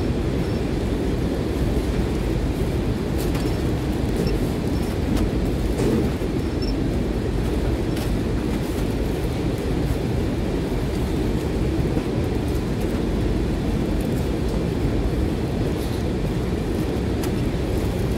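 Steady low rumble of warehouse machinery, with a few faint clicks from packing work.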